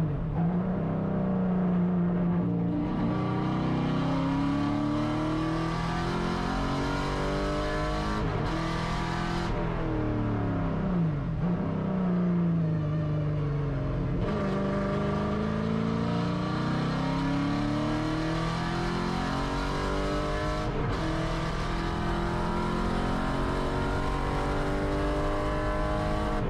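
The Camaro Z/28.R race car's 7.0-litre LS7 V8, heard from inside the cabin while lapping a track. The engine note climbs steadily through the revs and drops sharply at each gear change of its six-speed manual, several times over.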